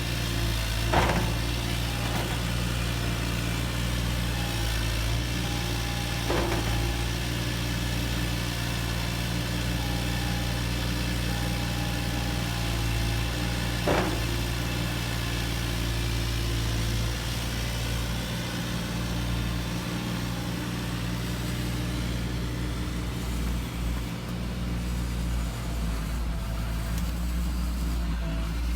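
Steady mechanical hum of radio-controlled construction models at work, broken by three sharp knocks about one, six and fourteen seconds in.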